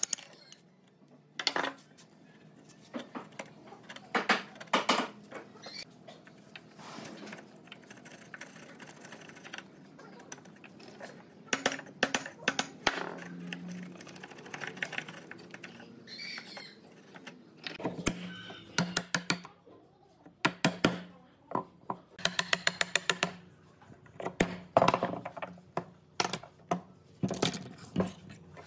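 Steel bench chisel paring a joint in pine: irregular sharp clicks and knocks of the blade biting and levering the wood, some in quick runs, between softer scraping strokes.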